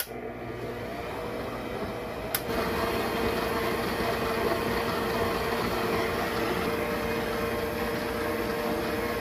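Electric stand mixer switched on and running steadily, its dough hook turning dry bread-dough ingredients (flour and shortening) in a stainless steel bowl under a splash guard. About two seconds in there is a click, after which the motor runs slightly louder with a steady hum.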